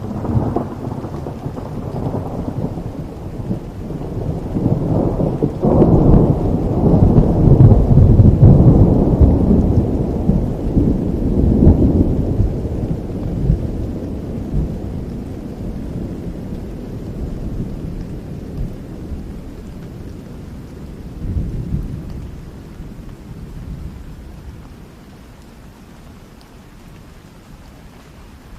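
A long roll of thunder over steady rain: it breaks suddenly at the start, swells to its loudest several seconds in and rumbles away over about twenty seconds, with a smaller crack about three quarters of the way through.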